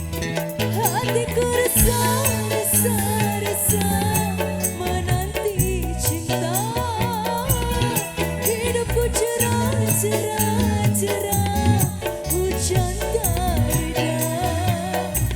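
A song with an ornamented, wavering vocal melody over steady bass notes and busy percussion.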